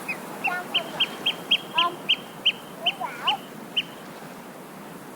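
Seaside ambience: a bird calls a rapid run of short, sharp high notes, about three a second, stopping about four seconds in, with a few lower calls from other birds mixed in, over a steady wash of surf.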